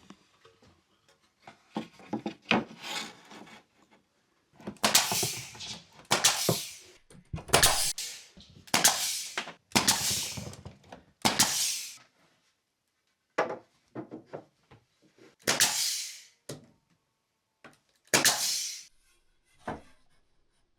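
Rasping strokes on a piece of wooden trim being shaped by hand, about eight strokes of roughly a second each, with short gaps and a longer pause between them. A few light taps come before the strokes.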